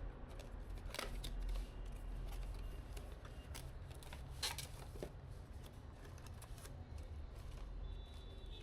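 Hands handling PC parts and packaging: a run of small clicks and rustles, with sharper clicks about a second in and again around four and a half and five seconds in, over a steady low hum.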